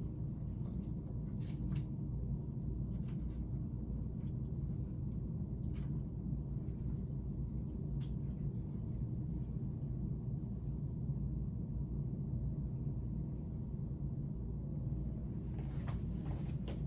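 Steady low background rumble, with a few faint short clicks.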